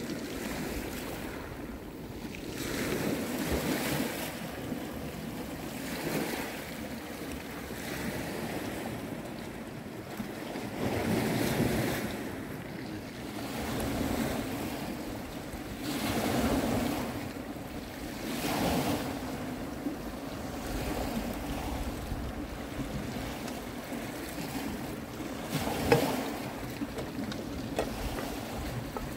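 Small sea waves washing in and out over a pebble beach, swelling every few seconds, with wind on the microphone. There is a single sharp knock near the end.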